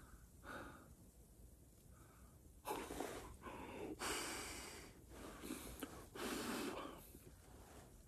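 A man breathing hard: quiet at first, then about five loud, noisy breaths and gasps in quick succession from nearly three seconds in.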